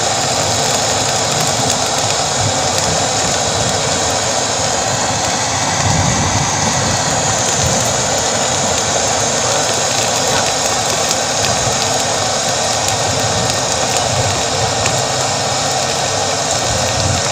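A homemade plastic pelletizing extruder running steadily, a constant mechanical drone with a hiss over it, as molten plastic is pushed out of its nozzle.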